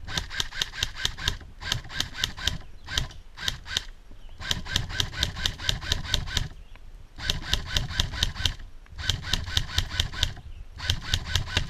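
Airsoft guns firing full-auto bursts, about eight shots a second, in repeated strings of one to two seconds with short pauses between them.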